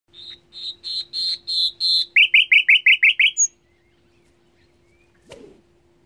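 Nightingale singing one phrase: six clear whistled notes, each louder than the last, then a fast run of about seven sharp down-slurred notes that ends a little over three seconds in. A short soft thump follows about five seconds in.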